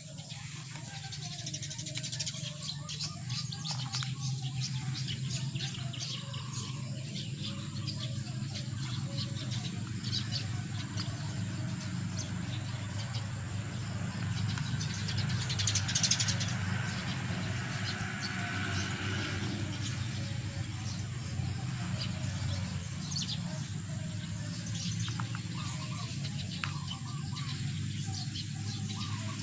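Gloved hands stirring and scooping a dry potting mix of soil and carbonized rice hull in a plastic basin: a steady rustling, scraping crunch, with a low steady hum underneath.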